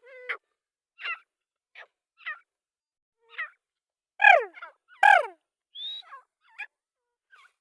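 Black francolin calling: a series of short, harsh, falling notes, with two louder calls about four and five seconds in.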